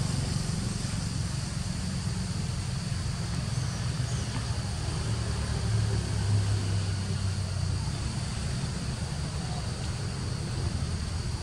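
Steady low engine-like rumble with a steady high insect drone over it.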